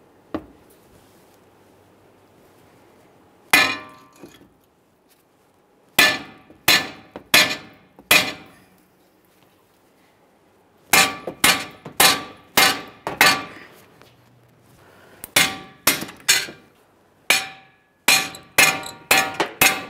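Hammer striking the tips of rusted steel camber bolts at the strut-to-steering-knuckle joint, ringing metal-on-metal blows in groups of three or four with pauses between, faster near the end, tapping the splined bolts out to break them free.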